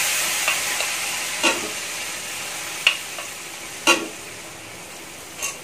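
Boiled peas hitting hot oil and turmeric in a steel kadai, sizzling hard at first and then dying down. A metal ladle knocks sharply against the pots about five times as more peas are scooped in.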